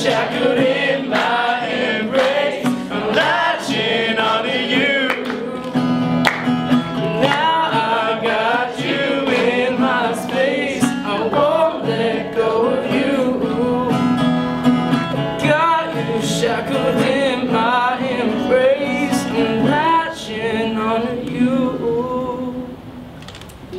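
A song: singing over guitar accompaniment, with the music fading down near the end.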